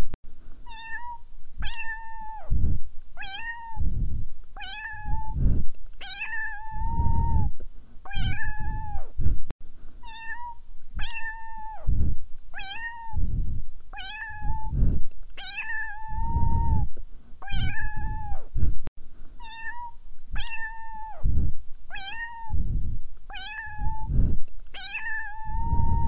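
A domestic cat meowing over and over at a steady pace, about one meow a second. The meows are near-identical, each rising briefly, holding level and dropping away at the end.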